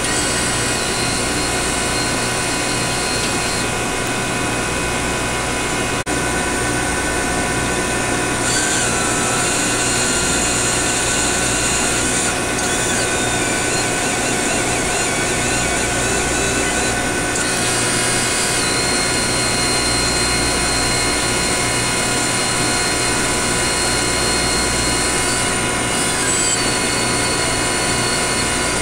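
Stepper motor of a MAT 253 dual-inlet bellows drive whining as it moves the bellows, in stretches: one from about eight to seventeen seconds in, its pitch wavering in the middle, and a shorter one near the end. Under it runs the instrument's steady hum of pumps and electronics.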